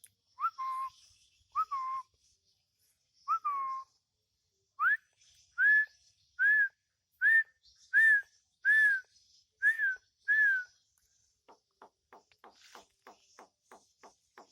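Javan myna whistling: three lower notes, each with a quick upward flick, then eight higher notes about a second apart, each rising and falling. Near the end comes a run of soft quick clicks, about four a second.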